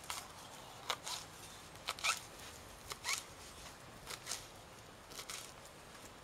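Knife chopping fresh foraged greens (goosegrass and nettles) on a plate: short crisp cuts coming roughly in pairs about once a second.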